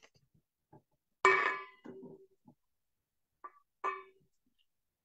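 Two ringing metallic clangs about two and a half seconds apart, each dying away within half a second, with faint clicks and knocks between.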